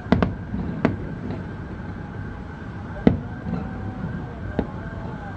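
Aerial fireworks shells bursting: a quick pair of sharp booms right at the start, then single booms about a second in, about three seconds in and near the end. A faint wail rises and falls in the middle.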